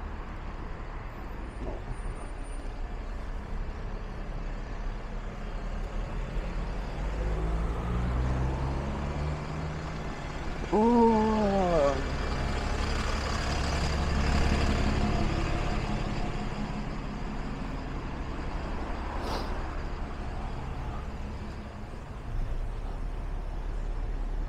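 Road traffic passing on a town street: a heavy vehicle's engine rumble builds to a peak around the middle and then fades away, with a short squeal falling in pitch just before the peak. A brief sharp click comes near the end.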